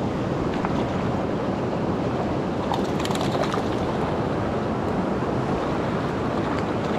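Steady rush of a flowing mountain creek, with a brief cluster of faint ticks about three seconds in.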